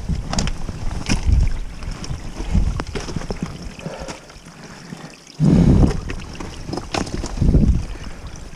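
Wind buffeting the microphone in irregular gusts over a steady rushing hiss, with scattered short knocks and clicks.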